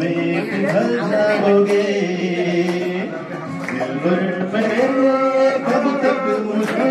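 A karaoke backing track for a Hindi song plays through the hall's speakers while a man sings along into a microphone.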